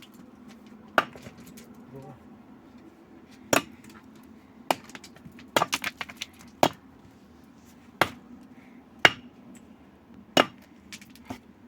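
A hand tool striking hard material: about a dozen sharp, separate blows, irregularly spaced about a second apart.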